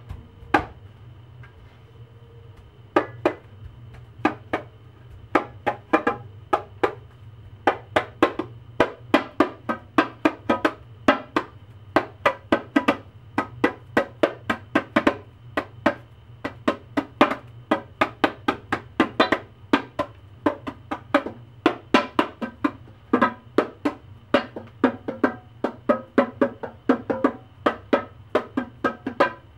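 Small hand drum slapped with bare hands: a long run of sharp strikes in an uneven rhythm, starting about three seconds in.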